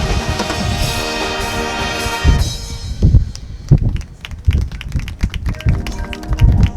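High school marching band playing: the brass section holds a loud chord that cuts off about two and a half seconds in. A percussion passage of bass-drum thumps and sharp snare and cymbal hits follows, and held brass tones come back near the end.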